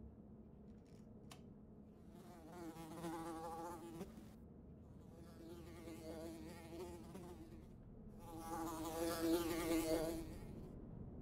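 A fly buzzing in passes, its wavering buzz swelling and fading three times, loudest near the end. A faint click about a second in.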